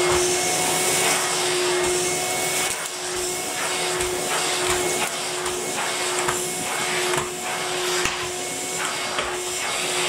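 Numatic canister vacuum cleaner running steadily: a constant motor hum and suction hiss. Its floor tool is pushed back and forth over carpet, making a repeated swish roughly once a second as it sucks up spread-out dirt.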